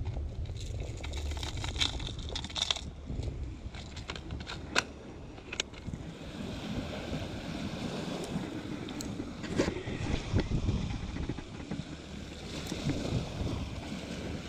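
Plastic lure box and hard-bodied lures clicking and rattling as they are handled. From about six seconds in, waves washing over shore rocks, with wind buffeting the microphone.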